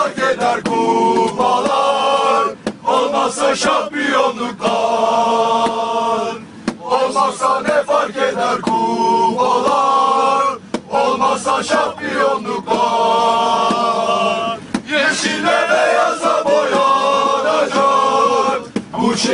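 Male voices singing a Bursaspor supporters' terrace chant in unison, in sung phrases of about four seconds with short breaks between them.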